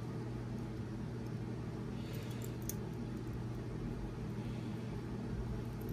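Steady low hum of room machinery, with a few faint clicks and rustles from about two seconds in as nylon cave line is pulled through a knot and a metal bolt snap is handled.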